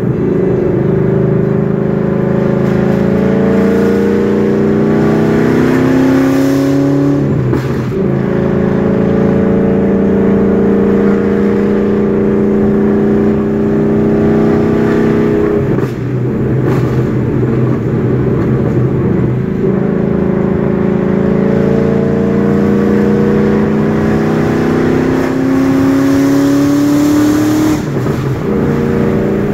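Ford Mustang GT's Coyote 5.0 V8, with long-tube headers, an X+H crossover pipe and no mufflers or resonators, pulling through the gears. The engine note climbs in long rises, broken by a few gear changes, giving a loud, deep exhaust with a rising wail.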